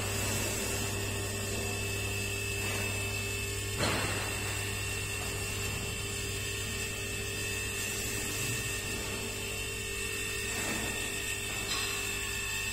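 Hydraulic power unit of an in-ground scissor car lift running with a steady electric hum while it raises the platforms, with a single click about four seconds in.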